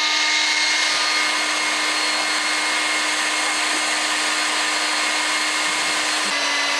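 DeWalt DCBL720P1 20V brushless handheld leaf blower running at full speed: a steady rush of air with a high motor whine.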